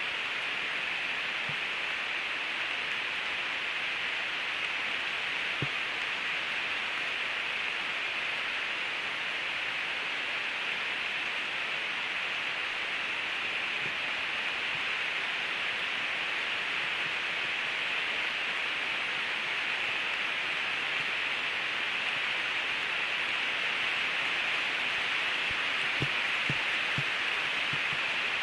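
Heavy rain falling on the forest leaves, a steady even hiss, with a few soft knocks near the end.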